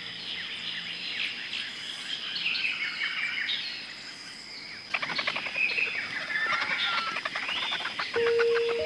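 Many small birds chirping and calling at once. About five seconds in, the sound changes abruptly to a fast, chattering run of calls with clicking notes.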